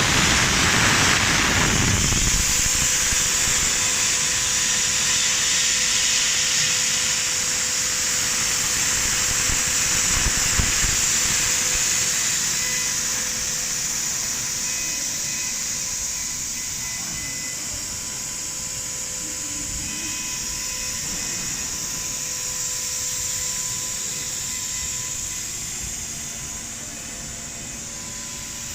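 ND4040-12ATC CNC die-engraving machine running: a steady high spindle hiss with faint steady whine tones, slowly getting quieter.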